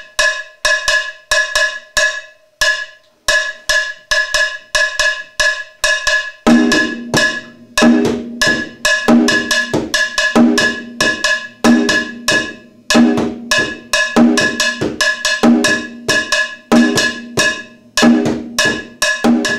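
An iron campana bell struck with a stick keeps a steady, repeating Arará bell pattern. About six seconds in, a tumbadora (conga) played with a stick and bare hand joins with a deeper repeating drum part: rhythm 1, second drum.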